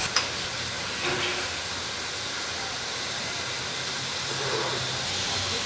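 NM class steam locomotive NM 25 blowing steam from its cylinder drain cocks: a steady hiss, with a short sharp click just after the start.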